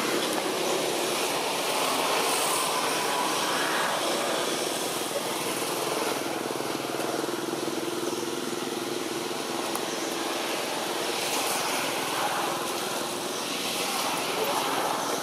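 Steady drone of a distant engine, with a faint hum that holds through the middle few seconds.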